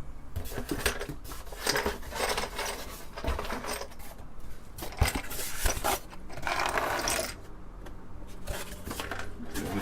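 Loose plastic keycaps clicking and clattering as they are sorted by hand and pressed onto the key switches of an Apple II Plus keyboard: irregular sharp clicks with a couple of longer rattling stretches.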